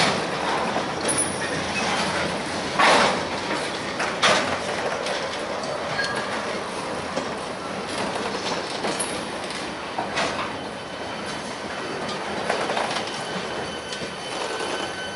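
A freight train's loaded open-top hopper cars rolling past, with a steady rumble and wheels clacking over rail joints. Two sharp knocks, a few seconds in, are the loudest sounds. A thin, steady, high wheel squeal comes in near the end.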